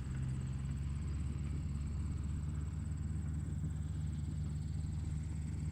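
Tractor engine running steadily: a low, even drone.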